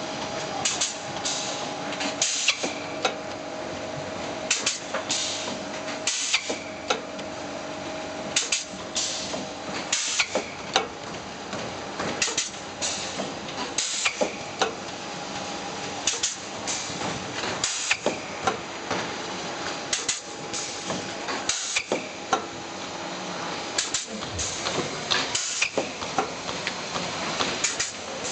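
Flat-plate blister packing machine running through its cycle: pneumatic forming and sealing strokes knock, and each knock comes with a short hiss of released air, repeating about once a second over a steady machine hum.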